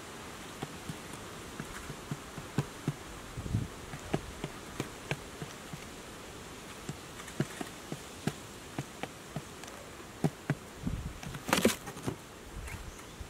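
Quail pecking at grain on a board: sharp, irregular taps throughout. Near the end comes a louder brief scuffle with a low thump, just as the bird disappears from the trap's edge.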